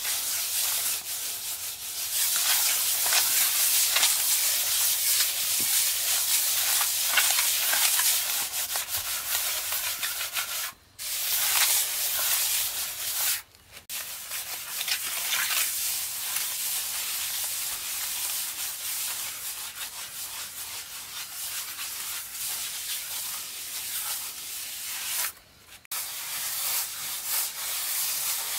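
A small plastering tool rubbed over fresh cement render on a wall, smoothing the surface: a continuous gritty scratching, broken by three brief pauses.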